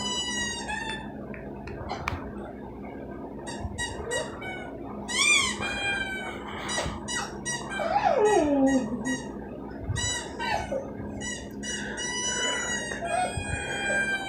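Rubber squeaky toy squeaked repeatedly through a TV's speaker, in long drawn-out squeaks and short quick ones, with a dog's whine sliding down in pitch about eight seconds in.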